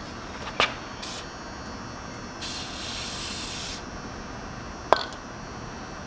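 Aerosol spray grease hissing onto a tiller's axle shaft to lubricate it for a new seal: a short spray about a second in, then a longer one of about a second and a half. Two sharp clicks, one about half a second in and a louder one about five seconds in.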